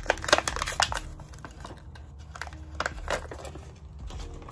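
Plastic blister packaging of a BIC lighter being pried and torn open by hand, crackling and crinkling in a quick run of sharp snaps through the first second, with a few more about three seconds in.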